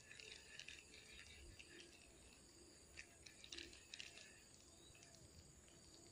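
Near silence: faint outdoor ambience with a few soft scattered ticks.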